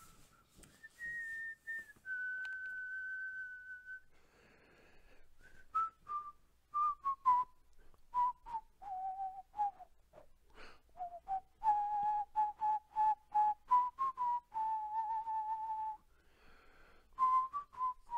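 A person whistling a slow tune, with long held notes and quicker ones, and sharp clicks in among the notes.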